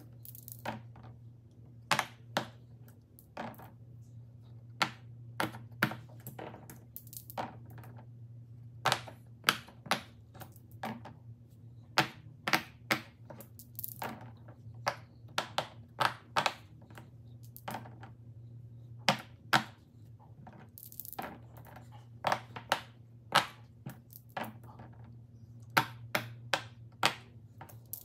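Silicone pop-it bubbles being pressed, popping in sharp, irregular clicks, often in quick pairs or small runs, with dice now and then rattling in the hand and clattering onto the silicone board. A faint steady low hum sits under it.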